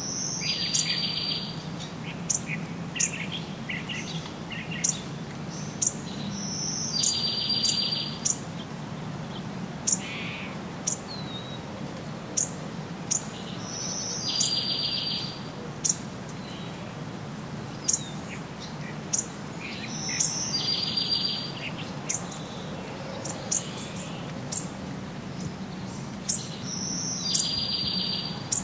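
A forest bird singing the same short phrase about every seven seconds, a high note followed by a buzzy trill lasting about a second. Many sharp, very high chip notes come in between, over a steady low hum.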